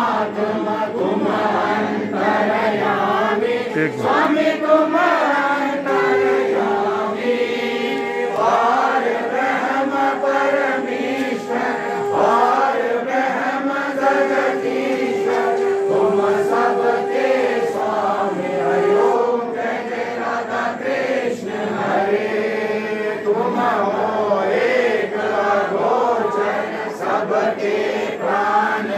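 Crowd of devotees singing a Ganesh aarti together in chorus. A single steady tone is held over the singing twice in the middle, each time for about five seconds.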